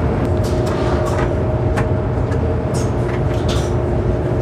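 Steady rumble and hum of a passenger train running, heard inside the carriage, with scattered light ticks and rattles.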